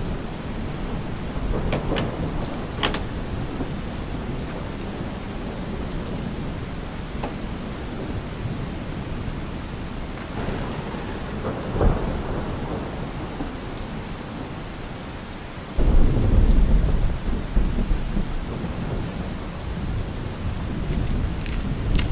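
Steady rain falling, with a couple of light clicks a few seconds in and a roll of thunder that comes in suddenly about three-quarters through and rumbles on for several seconds.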